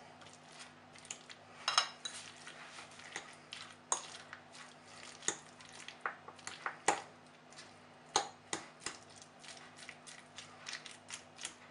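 Metal fork mashing avocado with chopped tomato and onion in a glass bowl: irregular light clinks and taps of the fork against the glass.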